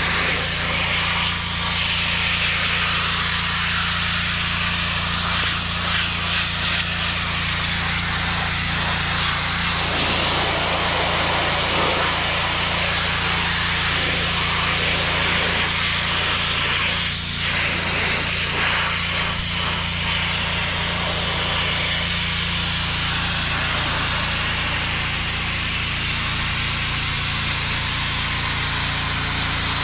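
3400 PSI DeWalt gas pressure washer: its engine hums steadily under load while the wand's high-pressure water jet hisses against concrete steps and a curb edge.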